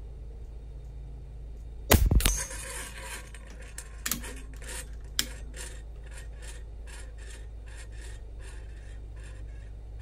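A single moderated shot from an AEA Challenger Pro .25 calibre regulated PCP air rifle about two seconds in, the loudest sound, followed by a couple of clicks and a run of light, evenly spaced ticks that fade out over the next few seconds.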